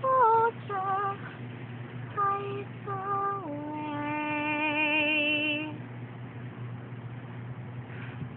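A young girl singing unaccompanied: a few short sung notes, then a long held note that steps down in pitch and wavers with vibrato, stopping about six seconds in.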